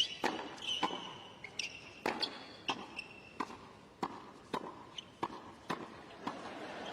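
Tennis balls being struck by rackets and bouncing on a hard court in a quick rally: a string of sharp pops about two a second. A few short shoe squeaks come in the first few seconds.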